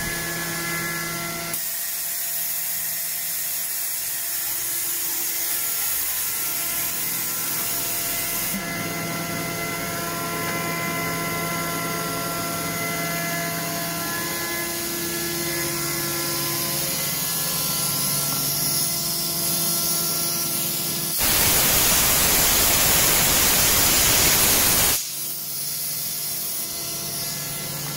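ALUP COMBI GE 15 11 kW rotary screw air compressor running steadily while building pressure, a constant hum with several steady tones. About 21 seconds in, a loud hiss of escaping air lasts about four seconds, then the running sound carries on alone.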